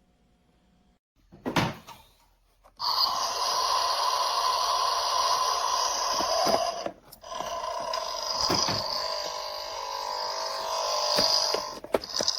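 Theo Klein Bosch battery-powered toy espresso machine running its built-in brewing sound effect: a click about a second and a half in, then a steady hissing, rasping machine noise in two long stretches, broken by a brief stop about halfway through.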